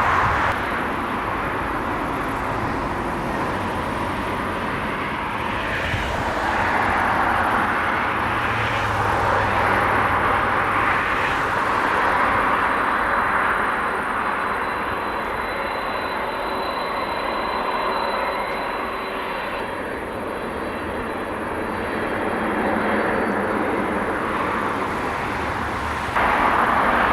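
Jet airliner's engines running on approach: a steady rushing noise that swells and eases, with a faint high whine in the middle.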